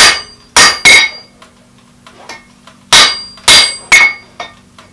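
Hand hammer striking a red-hot, very hard steel axe drift on an anvil: six heavy blows in two groups of three about three seconds apart, each with a bright metallic ring, plus a few lighter taps, as the drift is straightened rather than drawn out. A steady low hum runs underneath.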